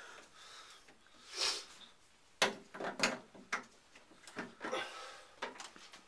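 A brief hiss, then a string of about six sharp clicks and knocks as the handheld shower's metal hose and the wire shower caddy are handled.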